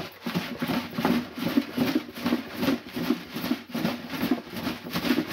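Partly frozen broth sloshing in a plastic milk jug, in a steady run of bursts about two or three a second.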